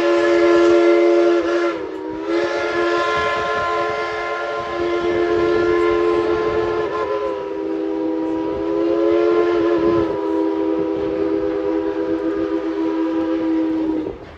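Steam whistle of Tweetsie Railroad locomotive No. 190 blowing: one blast ends about two seconds in, then a long held blast that wavers slightly in pitch and cuts off sharply near the end.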